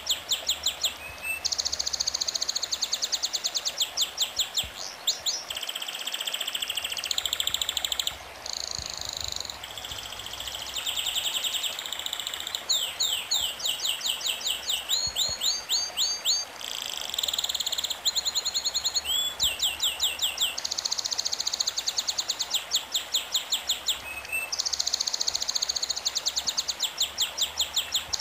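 A songbird singing continuously: long runs of fast, high repeated chirps and trills, changing phrase every second or two.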